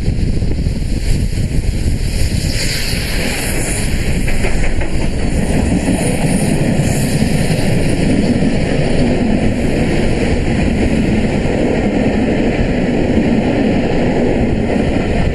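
Steam train double-headed by 34067 Tangmere and Black 5 45407 passing at speed: the locomotives go by in the first few seconds, then the coaches roll steadily past over the rails. Storm wind buffets the microphone.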